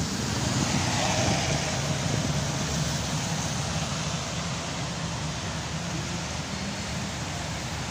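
Steady hiss of rain and of traffic tyres on a wet road, with a low vehicle rumble underneath; it swells briefly about a second in as a vehicle passes.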